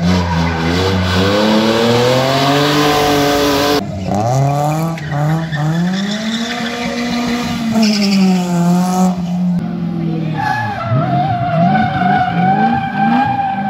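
Gymkhana drift car's engine revving up and down hard as it slides around cones, with tyre squeal; a longer, steadier tyre squeal comes near the end.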